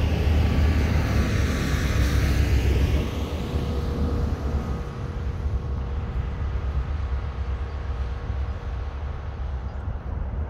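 A train passing on the track: a heavy low rumble with a rushing hiss that falls away after about three seconds as it moves off, leaving a weaker, fading rumble.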